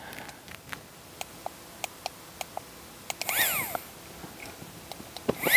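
Faint ticks as a small battery-powered air pump is handled, and a short call about three and a half seconds in that rises and then falls in pitch. Right at the end the pump's electric motor starts with a whine that sweeps up in pitch as it spins up to inflate a Therm-a-Rest NeoAir XLite air mattress.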